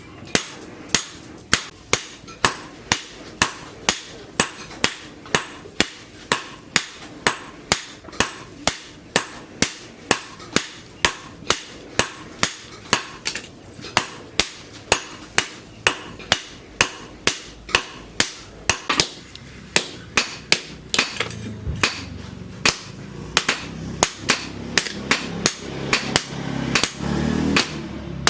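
Hand hammer striking hot leaf-spring steel on an anvil, a steady rhythm of about two blows a second with a short pause about halfway through. A low rumble rises under the blows in the last several seconds.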